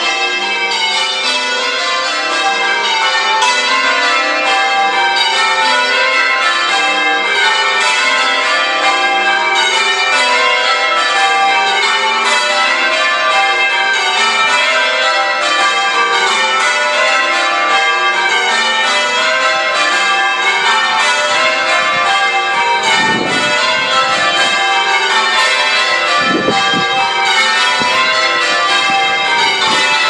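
A ring of eight church bells being rung in changes: a fast, unbroken sequence of overlapping bell strikes with a steady level.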